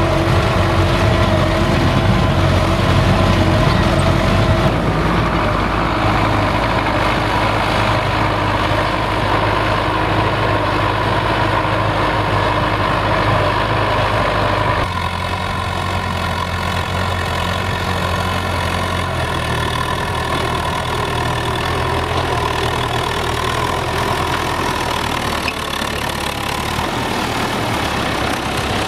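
Belarus MTZ-82 tractor's four-cylinder diesel engine running steadily, with an abrupt change in its tone about halfway through.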